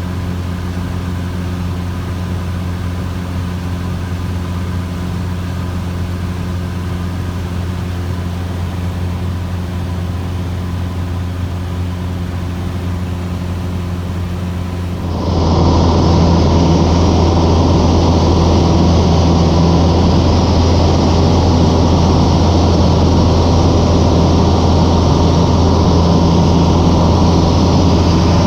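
Cessna 150J's Continental O-200 four-cylinder engine and propeller droning steadily in flight. About halfway through, the sound jumps abruptly to a louder, rougher drone that then holds steady.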